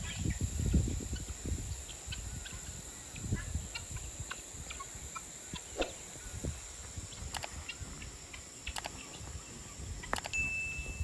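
Free-ranging poultry clucking and calling in short, scattered notes, over a steady high-pitched background whine. There is some low rumbling in the first couple of seconds and a brief whistled note near the end.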